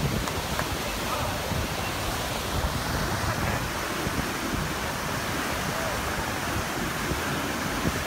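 Steady rush of floodwater pouring over a lake bank, mixed with wind on the microphone, with faint voices now and then.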